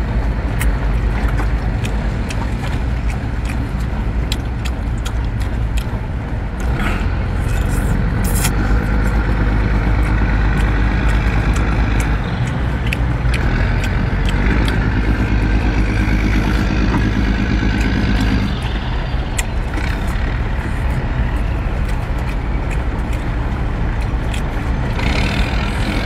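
Steady low engine rumble, like a motor idling, running through with little change, with scattered light clicks over it.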